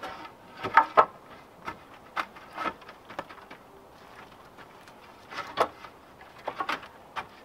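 Wooden sticks knocking and clacking as they are worked into place at the top of a stick-and-log wall: irregular sharp wooden knocks, the loudest two close together about a second in, then a few more scattered through the rest.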